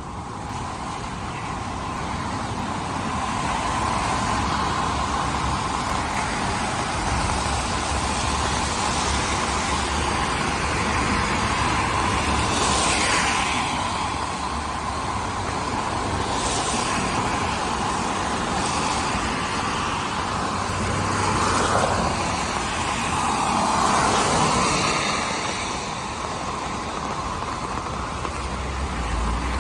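Downtown street traffic on wet roads: a run of cars passing one after another with a hiss of tyres on wet pavement over a steady hum of city noise. The loudest passes come a little past halfway and again about two-thirds of the way through.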